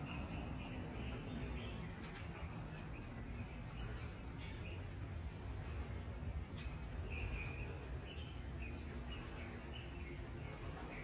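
Steady high-pitched insect chorus over a low rumble, with a few short higher chirps about two-thirds of the way through.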